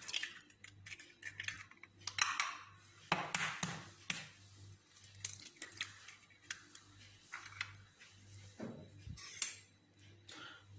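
Scattered light clicks and taps of kitchen handling: two eggs being cracked against a bowl and tipped in.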